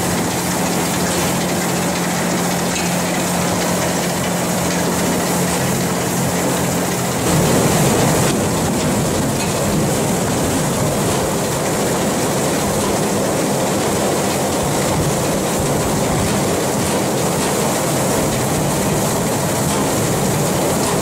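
Pineapple processing-line machinery running: a steady clattering din of conveyors and rollers carrying pineapples. A low hum runs for the first several seconds, then the rattle turns louder and fuller about seven seconds in.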